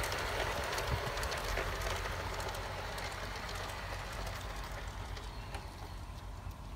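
LGB garden-scale model train (locomotive with tender pulling a coach and wagons) running on its track, the wheels giving off a run of small clicks over the rail joints; the sound grows fainter as the train moves away.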